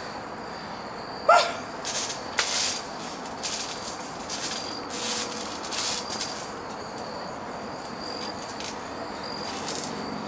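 Insects chirping in a thin, high, on-and-off trill, with a short yelp about a second in and scattered brief rustling sounds.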